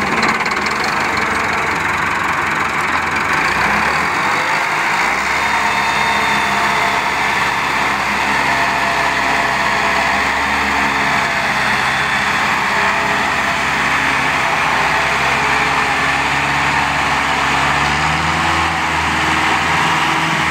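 Farm tractor's diesel engine running hard under load as it tries to drag a trailer full of soil out of wet mud, its pitch rising near the end.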